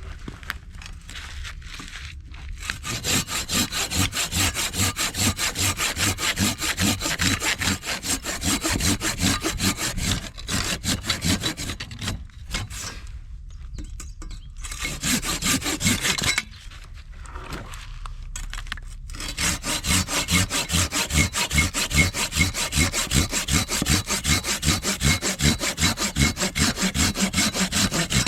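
Hand saw cutting through firewood in quick, even back-and-forth strokes, with short pauses and a longer break about two-thirds of the way through.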